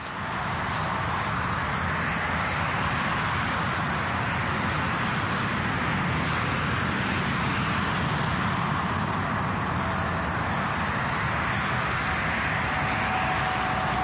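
Distant motorway traffic: a steady rushing of many vehicles carried across open country.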